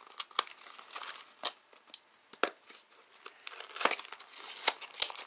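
Hands opening a small cardboard parts box and handling its packaging: scattered sharp clicks and snaps of the cardboard flaps, with crinkling and rustling in between.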